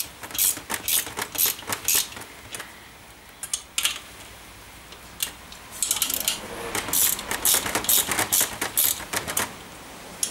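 Quick runs of small clicks and scratchy taps from hand work at the edge of a scissor-jack lift's padded top plate, with a pause of a couple of seconds and then a denser run in the second half.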